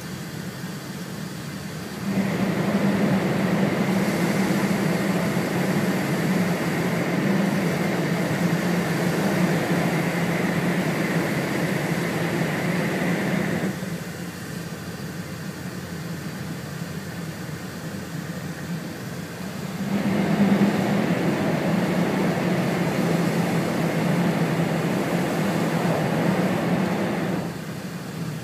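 Cabin running noise of an E4 series double-deck Shinkansen at speed: a steady rushing rumble. It jumps sharply louder about two seconds in and stays up for some eleven seconds, then does so again for about seven seconds later on, each time dropping back abruptly.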